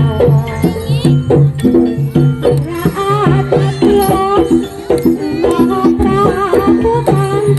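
Javanese jaranan (kuda lumping) ensemble music: an even, fast rhythm of percussion strokes under repeating pitched tones, with a wavering melody line above.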